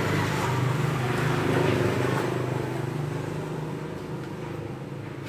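A motor vehicle engine running steadily nearby. Its hum grows louder over the first two seconds, then slowly fades.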